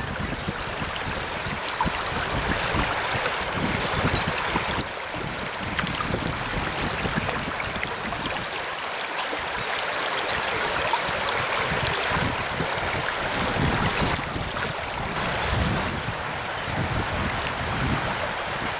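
River water rushing steadily, with wind buffeting the microphone in irregular low gusts.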